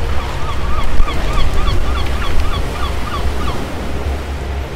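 Surf on a beach with wind rumble, and over it an animal call repeating about four times a second for roughly three seconds, each call a short rise and fall in pitch.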